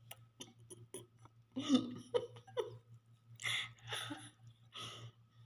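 A woman giggling softly while eating noodles with her hand, with small wet clicks of chewing and mouth sounds. A steady low hum runs underneath.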